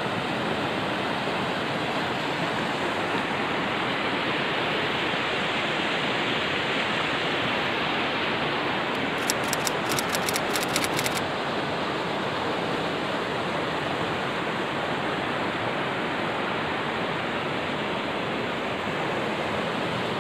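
Mountain stream rushing over rocks, a steady even rush of water. About halfway through, a brief run of rapid sharp ticks sounds over it.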